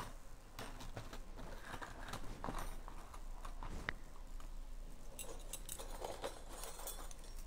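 Faint room noise through the microphone: a steady low hum with scattered small clicks and taps.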